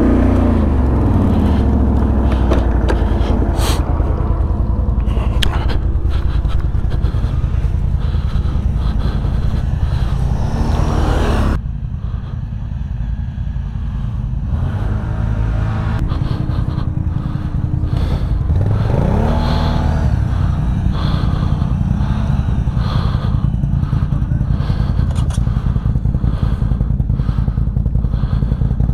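ATV engines running and revving off-road, pitch falling at the start and rising hard just before an abrupt cut about a third of the way in. After the cut the engine sound is lower, with another short rev rising about two-thirds of the way through.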